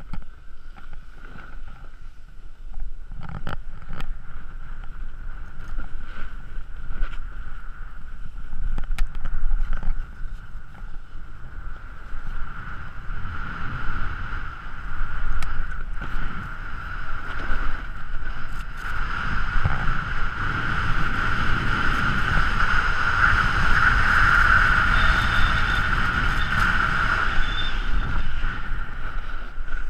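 Sliding down a packed, groomed ski slope: snow hissing and scraping under the rider, with wind on the camera's microphone and a low rumble. A steady high-pitched whine runs through it, growing louder in the second half.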